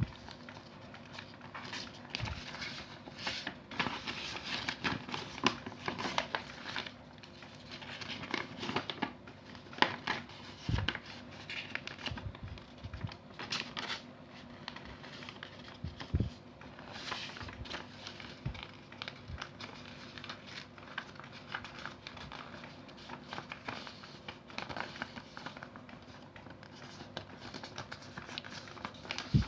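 A sheet of A4 printer paper being folded and creased by hand: irregular rustling and crinkling with crisp taps as folds are pressed flat.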